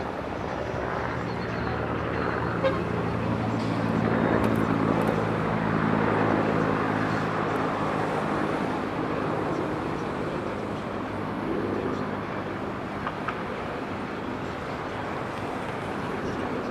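City traffic: a vehicle engine hums, loudest about four to six seconds in and fading after about ten seconds, over a steady wash of road noise.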